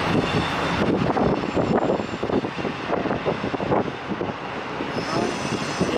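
Double-stack intermodal freight train's well cars rolling past close by: a steady rumble of steel wheels on rail, broken by many short clanks and rattles from the cars.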